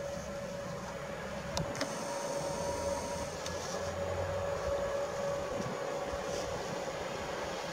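An electric locomotive-hauled PKP Intercity train approaching a station: a steady low rumble and hum with a steady mid-pitched tone running through it.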